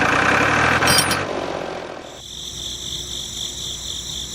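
A small engine running with a rough clatter for about two seconds, then cutting off suddenly, leaving a steady, high, pulsing chirping in the background.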